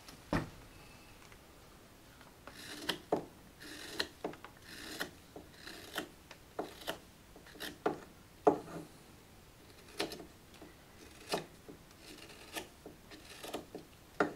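Carving knife cutting shavings from a green walnut ladle: a series of short, crisp slicing strokes, some drawn out into longer scraping cuts.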